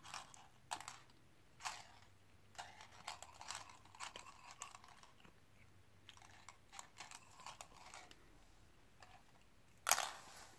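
Light clicks and rattles of plastic coil spring cat toys as a kitten noses and bites at them on a laminate floor. About ten seconds in, a louder clatter as a spring is flicked across the floor.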